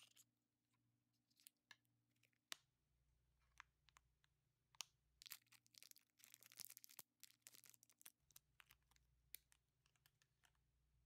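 Faint handling sounds of a plastic surprise egg and a cellophane candy wrapper: scattered light clicks, then a few seconds of crinkling and tearing from about five seconds in as the wrapper is pulled off a lollipop.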